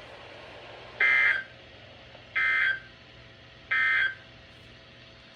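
Emergency Alert System end-of-message signal: three short, harsh digital data bursts about 1.3 seconds apart, the SAME 'NNNN' code that marks the end of the alert.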